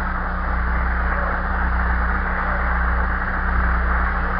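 Audience applauding, heard in a muffled old recording, with a steady low electrical hum underneath.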